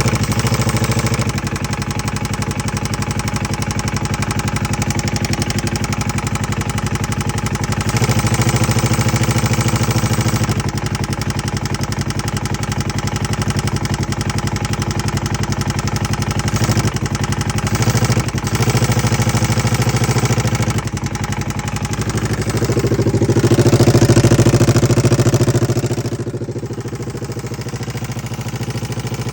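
2011 Polaris RZR 900 side-by-side's twin-cylinder engine idling, revved up a few times with the longest rise about three-quarters of the way through, then settling back to idle. It carries the knocking sound that the owner suspects comes from the timing chain or a valve.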